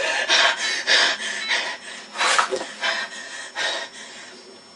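A boy breathing hard and snorting through angry pants after screaming, in short uneven breaths that grow quieter.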